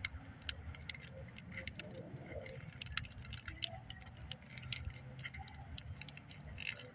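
Faint, irregular small clicks and ticks of wire terminals being lined up and pushed into a new plastic ignition coil harness connector, over a low steady background rumble.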